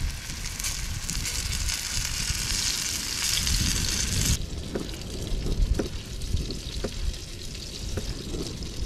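Floured fish fillets shallow-frying in oil in a frying pan, a steady sizzle that cuts off abruptly about halfway through. After that come a few sharp knocks, about a second apart, of a knife slicing a tomato on a cutting board, over a low rumble.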